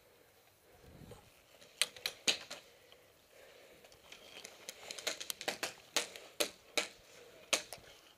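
Scattered sharp cracks of incoming airsoft fire, BBs striking the plywood barricade close by: three cracks about two seconds in, then a quicker irregular run of them from about halfway through to near the end.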